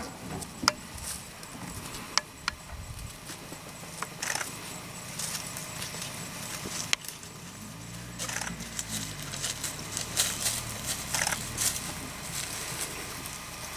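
Outdoor bush ambience with scattered sharp clicks and crackles, and a low steady hum from about eight to eleven seconds in.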